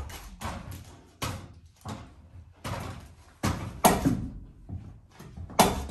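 A series of sharp knocks or bangs, about six of them at irregular spacing, the loudest about four seconds in and another near the end.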